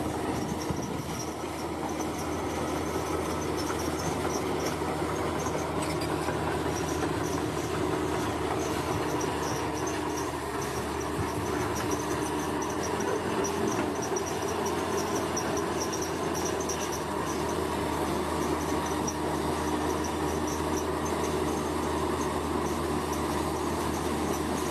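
Earthmoving machinery's diesel engines running steadily with a low drone, while insects chirp in a rapid high pulsing trill.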